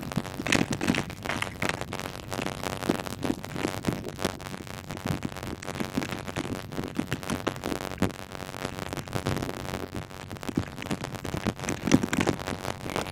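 Hand socket ratchet clicking in quick, irregular runs as it drives in the bolts that hold the MAF sensor to the airbox.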